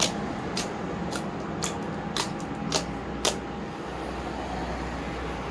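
Slime being worked by hand, with air pockets popping in a regular rhythm of about two sharp clicks a second that stop a little over three seconds in. A steady background hum runs beneath.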